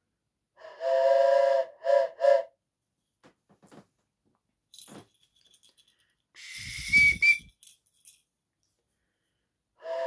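Steam-locomotive whistle sounds from a sound-fitted model steam locomotive: one long two-note toot, then two short toots. About six seconds in comes a burst of steam hiss with a low thud, and near the end another toot.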